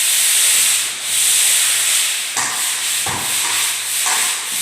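Pole sander's fine-grit sanding pad rubbing over a painted drywall wall in long back-and-forth strokes. It makes a steady scratchy hiss that dips briefly each time a stroke turns, about once a second. This is light sanding of a first coat to knock down burrs and bits before the next coat.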